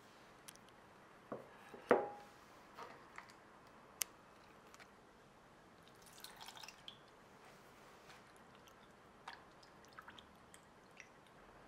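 Scattered kitchen handling sounds: light taps, clicks and small knocks of utensils and dishes, the loudest a short ringing knock about two seconds in, with a cluster of small clicks around the middle.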